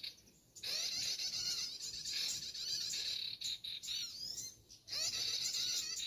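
Bird-trapping lure recording of small songbirds chirping, played to draw birds to lime sticks: dense, rapid, high arching chirps repeated several times a second, dropping out briefly just after the start and again about five seconds in.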